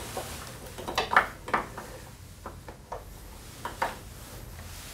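Irregular metallic clicks and clinks from hands handling parts and tools against a small motorcycle engine, with the loudest cluster about a second in and a few more scattered after.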